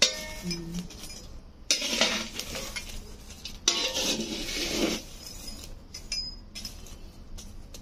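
Metal clinking and scraping in a metal pan of hot embers as litti dough balls are turned among the coals, with a sharp ringing clink at the start and a few longer stretches of scraping and rustling.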